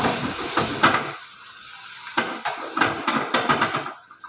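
Masala-coated paneer sizzling in a frying pan over a high flame while a utensil stirs it, scraping and tapping against the pan. The sizzle dies down about a second in, leaving a run of short scrapes and knocks.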